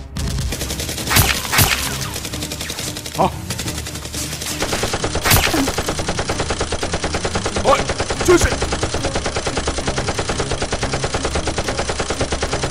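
Gunfire sound effects: scattered single shots, then from about four seconds in a rapid, even stream of machine-gun fire, with single louder shots standing out over it.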